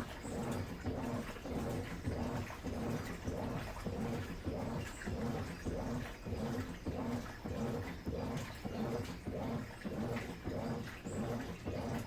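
Midea Wave-Agitator top-load washing machine agitating its load in water: the motor hums in a regular rhythm of back-and-forth strokes, with water sloshing in the tub.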